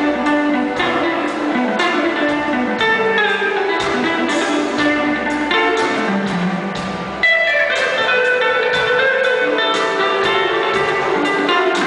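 Live band playing a slow soul ballad: a jazz guitar plays melodic solo runs over keyboard backing. About two-thirds of the way through, a falling run leads into a slightly louder passage.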